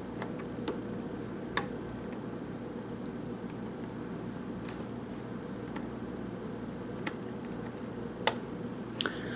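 Lock pick working the pin stack of a Corbin Euro cylinder under tension: a few sharp, faint, irregular clicks as pins are lifted and set on the way to a false set, over a steady low hum.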